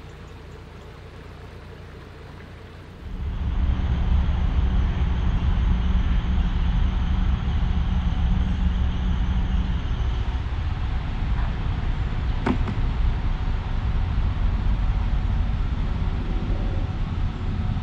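Narrowboat's engine running steadily under way, a loud low rumble that starts suddenly about three seconds in after a quieter hum. A single sharp click near the middle.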